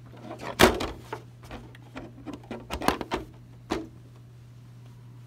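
A series of sharp knocks and clicks, irregularly spaced, with the loudest about two-thirds of a second in and the last near four seconds in, over a steady low hum.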